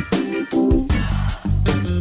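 Upbeat funk-style background music with guitar and drums.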